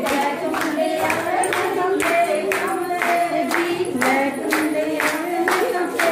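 A group of women singing together over steady rhythmic hand-clapping, about two to three claps a second.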